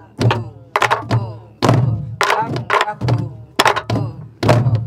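A class of sori-buk (Korean pansori barrel drums) played together. Sharp stick strokes on the wooden shell and heads mix with low open-palm thuds on the left head, in an uneven repeating rhythm of about two strikes a second.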